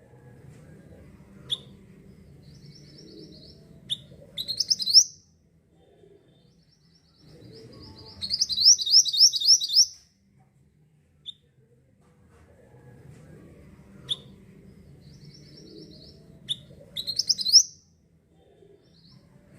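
Mantenan bird singing: loud bursts of rapid, high chirped notes, each phrase led by a few sharp single chips, three phrases in all, with a faint low background hum between them.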